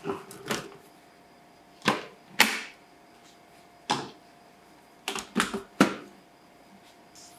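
Hard plastic clicks and knocks as the bowl and lid of a Cuisinart food processor are handled and twisted into place on the base. The clicks come singly every second or two, then three come in quick succession about five seconds in.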